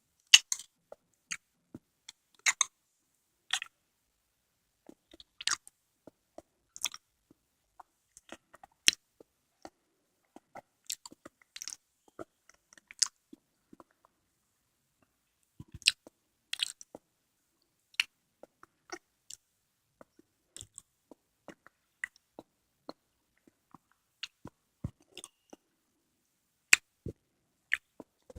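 Close-miked mouth sounds of eating konjac jelly: irregular wet clicks and smacks of chewing and biting, a few per second with short quiet gaps.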